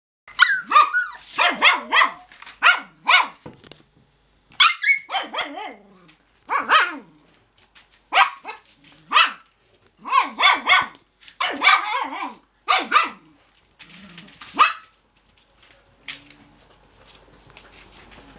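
Cocker spaniel puppies yapping, short high-pitched barks coming in quick runs one after another, stopping about fifteen seconds in.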